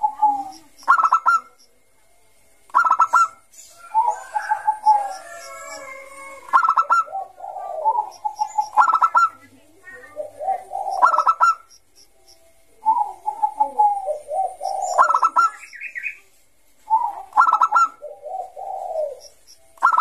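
Bangkok-type zebra dove (perkutut) singing its cooing song: about eight loud phrases of quick staccato notes, every two to four seconds, each joined by lower, softer rolling coos.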